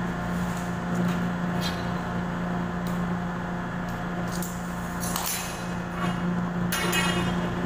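Thin metal electrical conduit being handled on a concrete floor: several short metallic clinks and scrapes, the clearest just after five seconds and near seven seconds, over a steady low hum.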